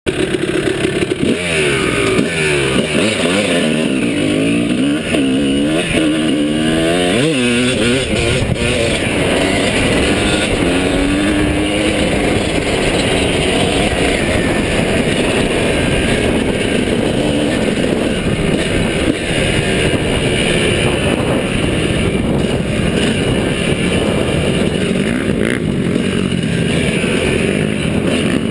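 Dirt bike engine revving hard and shifting up through the gears, its pitch climbing and dropping again several times over the first eight seconds, then running steadily at speed.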